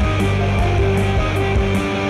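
Rock music soundtrack with guitar and a steady beat.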